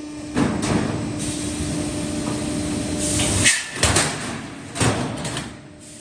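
Metal floor deck roll forming machine running: a steady hum, then steel sheet rushing through the forming rollers, followed by three loud metallic clanks a little past the middle.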